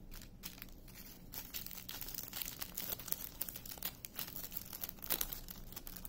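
Small plastic drill baggies crinkling in the hands, a run of soft crinkles and ticks, as loose diamond painting drills are tipped into an old resealable plastic bag.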